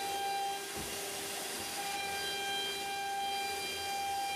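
CNC router spindle cutting a groove in an aluminium composite panel: a steady high-pitched whine over a constant hiss, its pitch shifting slightly about two seconds in.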